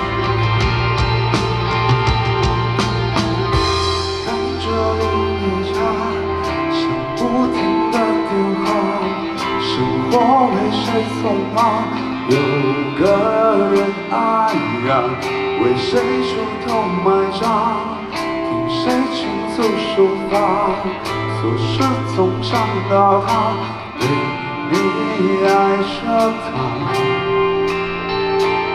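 Rock band playing live: steady drum beat, bass and electric guitars, with a singing voice over them.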